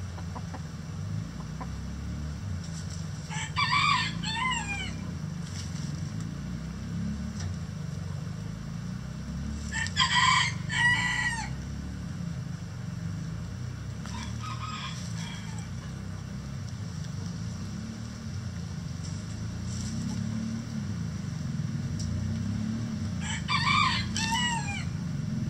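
Chickens calling in a coop: loud pitched calls about a second long, one about four seconds in, a double one around ten seconds, a fainter one a few seconds later and another near the end, over a steady low hum.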